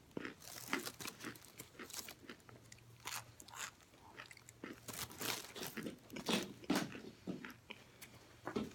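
Close-up biting and chewing of frozen oven-baked cornstarch chunks: a run of irregular, sharp crunches.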